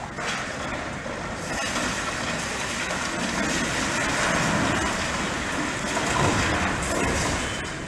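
High-reach demolition excavator breaking up the top floor of a concrete building: a continuous mix of machine noise and crunching, falling concrete that grows louder through the middle and eases near the end.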